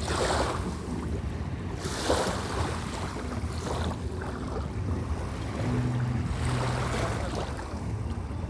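Black Sea waves washing onto the shore in soft surges, with low wind rumble on the microphone.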